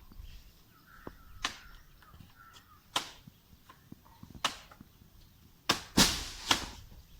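Chopping strokes into the trunk of an old coconut palm being felled: single sharp strikes about every second and a half, then a quicker run of three that are the loudest.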